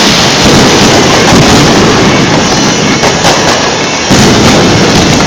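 Fireworks going off in a dense, continuous barrage of bangs and crackling, very loud throughout with no clear gaps between bursts.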